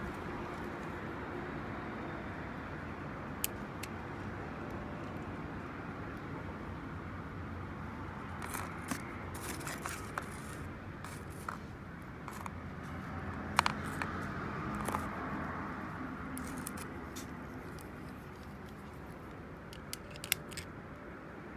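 Scattered sharp metallic clicks and clinks of hand work on a vehicle part, a cluster in the middle and a couple near the end, over a steady low background rumble.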